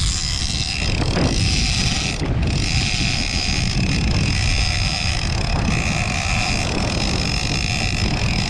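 Shimano Tiagra lever-drag game reel paying out line under drag, a steady high whine as a hooked fish runs, stronger after about two seconds. Wind buffets the microphone throughout.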